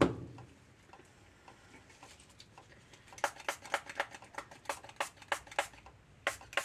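Light, rapid ticking at about three clicks a second, starting about three seconds in, after a few quiet seconds.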